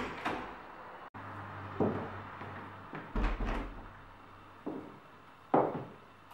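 A wooden door latch clicks as the door is handled, then shoes knock on a wooden plank floor at uneven intervals. There is a heavier thump about three seconds in.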